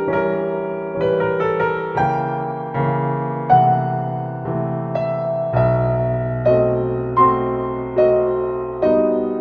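Background music: slow, gentle piano, notes and chords struck about once a second and left to ring.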